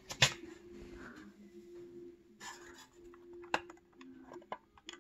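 Hand grabbing and handling an 1850s–60s George Brown clockwork tin toy locomotive: a sharp knock as it is caught just after the start, then scattered light clicks and rubs of the tin and wooden toy, several in the last second and a half.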